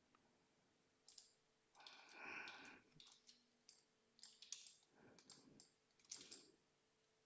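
Faint clicking of a computer mouse, a scattered run of short clicks, with a longer soft rustle about two seconds in.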